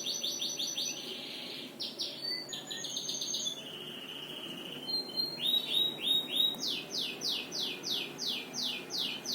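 White-rumped shama calling: quick runs of short downward-sweeping chirps. In the last few seconds comes a louder series of about nine descending whistled notes, roughly three a second.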